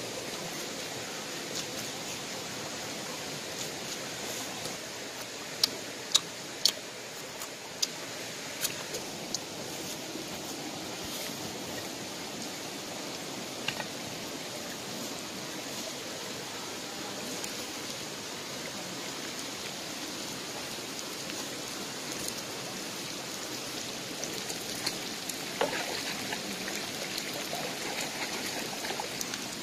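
Steady rushing of a flowing stream, with a few sharp clicks, several of them about six to nine seconds in.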